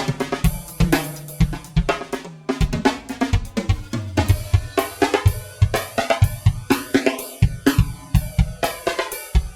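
Rock drum kit in a 70s psychedelic style playing a drumroll: rapid snare and drum hits with bass drum and cymbals, several strokes a second.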